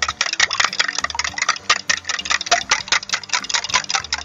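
A fork beating eggs with milk in a clear plastic cup: fast, even clicking of the fork tines against the plastic, about eight to ten strokes a second.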